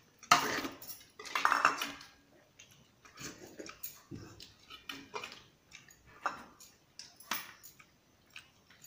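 Stainless-steel plate and bowls clattering and clinking as a hand mixes and scoops rice and curry, with two louder clatters in the first two seconds, then scattered light clicks and scrapes.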